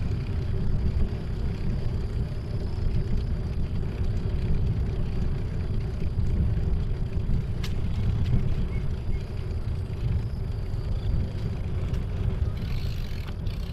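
Low, fluctuating rumble of wind on the microphone and tyres rolling over a concrete path while a bicycle is ridden along.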